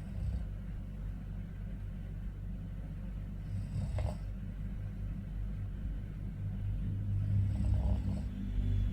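A man snoring in his sleep: two snoring breaths about four seconds apart, over a steady low hum.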